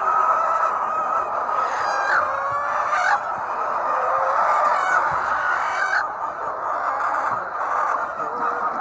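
A flock of hens clucking together in a steady din, with a few louder, sharper calls standing out about two, three and six seconds in.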